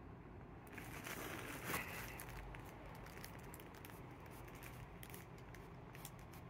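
A plastic bag crinkling and crackling as a cat shifts its weight on it: a dense flurry about a second in, then scattered crackles.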